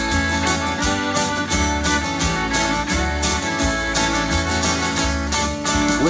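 Acoustic guitar and fiddle playing an instrumental break: the guitar strummed in a steady rhythm of about three to four strokes a second while the fiddle carries the melody.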